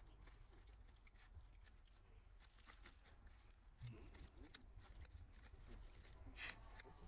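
Faint, scattered small clicks and crackles, with a soft thump about four seconds in and a brief louder crackle about six and a half seconds in.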